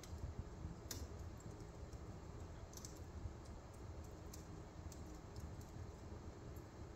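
Wood fire crackling faintly in a fireplace grate: scattered sharp pops, the strongest about a second in, over a low steady rumble.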